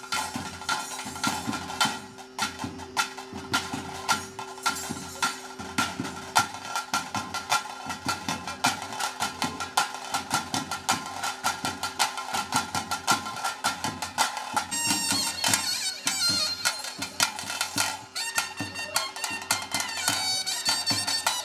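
Traditional Tulu ritual music: rapid, dense drumming on tase drums under a nagaswara melody, with a steady held drone beneath.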